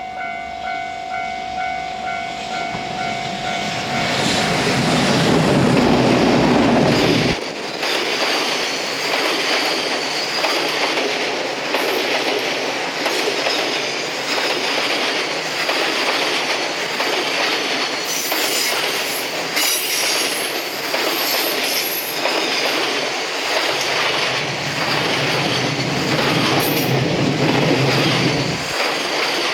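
Train passing close by while descending a steep grade. A steady pitched tone at the start stops about four seconds in; a low rumble builds and cuts off sharply about seven seconds in, then a long run of rapid clickety-clack from wheels over the rail joints follows, with a thin high wheel squeal, and the low rumble comes back near the end.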